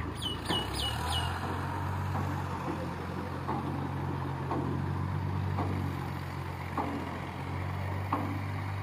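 Massey Ferguson tractor's diesel engine running steadily, pulling harder from about a second in, with a clunk from the tipping trailers about every second. Four quick, high, falling chirps sound near the start.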